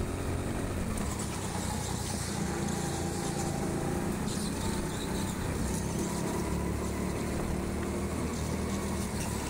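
Go-kart running steadily at speed on an indoor track, its motor hum and wheel noise picked up by a camera mounted on the kart.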